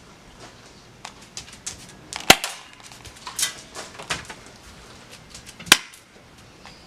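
Two sharp shots from a toy gun, about three and a half seconds apart, with lighter clicks and knocks of handling or footsteps between them.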